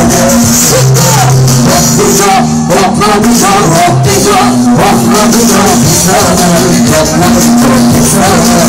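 Amplified live band music: a song with a sung melody over a steady bass line and percussion, played loud.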